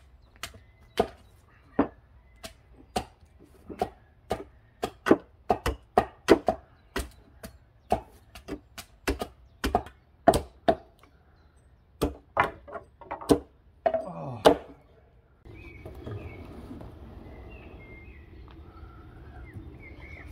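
A hatchet striking wooden stakes: sharp, irregular knocks of wood, one or two a second, that stop about fifteen seconds in. A steady outdoor background follows, with a few short chirps.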